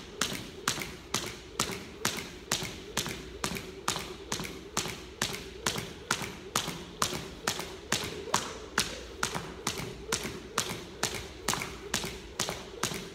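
Half-pound Crossrope weighted jump rope slapping a hardwood floor on each turn, along with the jumper's shoes landing. The strikes come in a steady, even rhythm of about two and a half a second.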